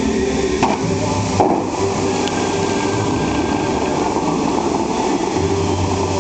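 Bellagio fountain show: the steady rush of the water jets and falling spray, with music from the show's loudspeakers underneath. Two short thumps in the first second and a half.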